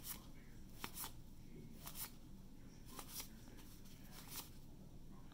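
Faint, short swishes of 1982 Donruss cardboard baseball cards sliding off a hand-held stack as they are flipped through one at a time, about once a second.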